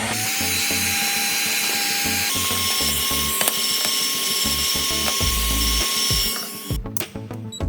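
A small high-speed power tool running steadily with a hissing whine. Its pitch steps up a little over two seconds in, and it stops abruptly near the end, with music underneath.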